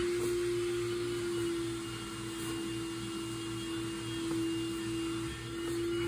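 Vacuum cleaner running in another room: a steady motor whine on one held pitch over a low hum, dipping briefly about five seconds in.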